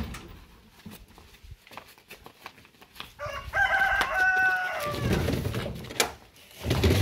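A rooster crows once, a call of nearly two seconds that starts about three seconds in and falls slightly at its end. Before it come a few light knocks.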